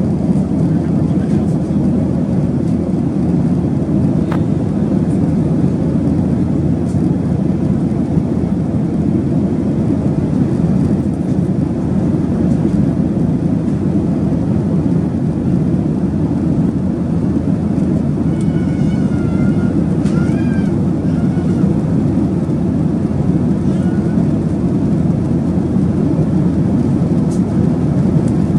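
Steady, even roar of a Boeing 737-800 airliner heard from inside the cabin: engine and airflow noise at a constant level.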